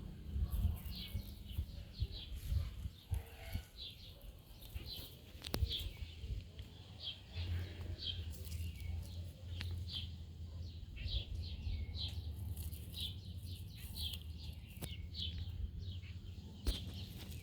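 Small birds chirping, with short high chirps coming a few times a second at irregular intervals, over a low steady rumble that grows stronger about seven seconds in.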